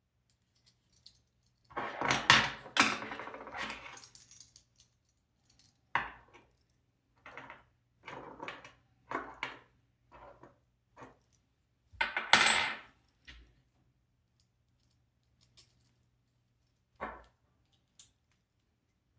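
Small hardware parts being handled: irregular clinking and rattling, loudest about two seconds in and again about twelve seconds in.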